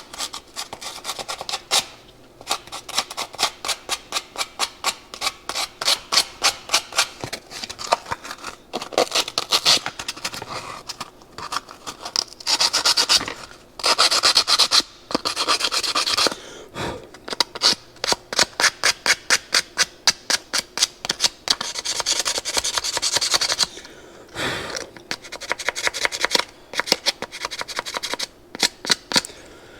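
Abrasive paper being rubbed back and forth on small metal carburetor shafts, rubbing off rust in quick strokes, several a second, with a few brief pauses.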